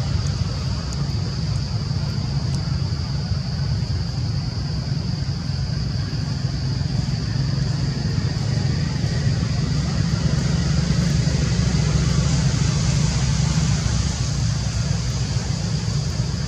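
Steady outdoor background noise: a low rumble with a steady high-pitched hum above it, and no distinct events.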